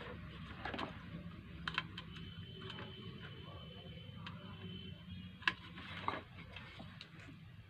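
A few light clicks and taps, spaced seconds apart, from small parts of a sewing machine foot pedal being handled during repair.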